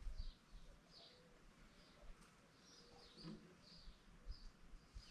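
Near silence with faint bird chirps: short high calls, about two a second.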